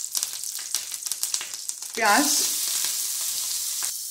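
Garlic and green chillies crackling in hot oil in a nonstick frying pan as a spatula stirs them. About two seconds in, chopped onion is tipped into the oil and the sound jumps to a louder, steady sizzle.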